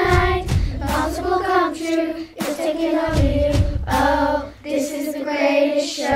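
Children's voices singing together over a backing track with low drum beats; separately recorded young singers mixed into one virtual choir.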